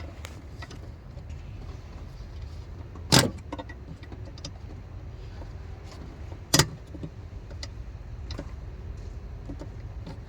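Two sharp clicks about three and a half seconds apart, over a steady low hum: electrical connector latches on the engine wiring harness being released while it is unplugged.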